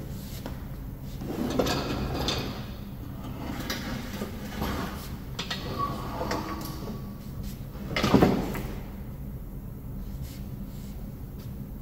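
Cub Cadet LTX1045 steel mower deck being slid and turned around on a wooden workbench, scraping and knocking, with a louder thump about eight seconds in.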